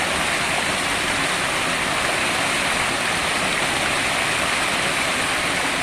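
Water cascading down a concrete spillway and splashing into a shallow stream: a steady rush that does not change.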